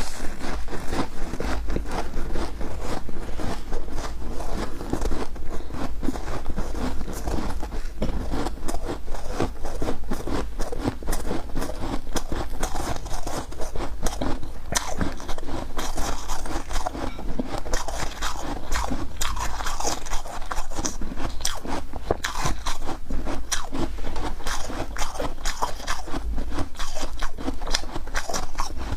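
Freezer frost being bitten and chewed close to the microphone: an unbroken run of crisp crunches and crackles.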